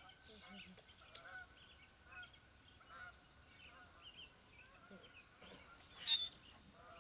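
Border collie puppies squeaking and yipping faintly while playing with an adult dog, with one sharp, loud high yelp about six seconds in.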